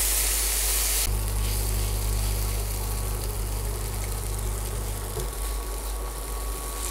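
Chopped tomato and peanuts sizzling in oil in a nonstick kadai as they are stirred with a silicone spatula. The sizzle is louder in the first second, then drops, and a steady low hum runs under it for about four seconds.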